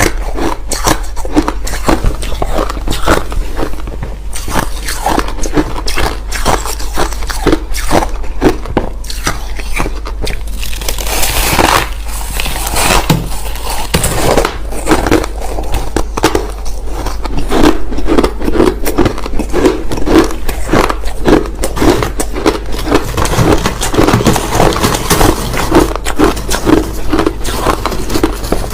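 Crushed ice chewed close to the microphone: a dense run of crisp crunches and cracks. It settles into steady rhythmic chewing in the second half.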